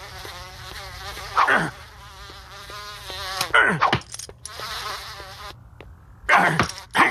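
Giant cartoon fly buzzing loudly, wavering in pitch, with two sudden swoops falling in pitch about one and a half and three and a half seconds in. Near the end come several short, sharp sounds.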